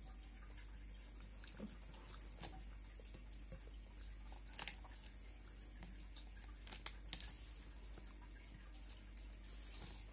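Faint eating sounds of a meal of rice and side dishes eaten by hand: soft wet mouth and finger sounds with about half a dozen short, sharp clicks against the plate.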